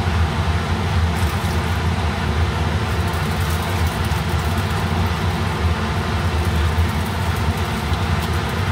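A steady low hum with an even hiss over it: a motor or fan running in the kitchen.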